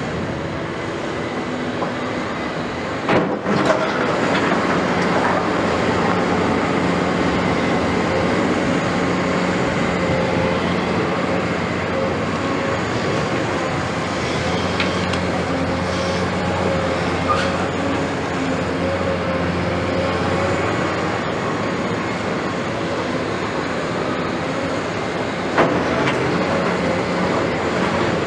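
Caterpillar 329E tracked excavator's diesel engine and hydraulics running steadily under load as it digs, with a sharp knock about three seconds in and another near the end.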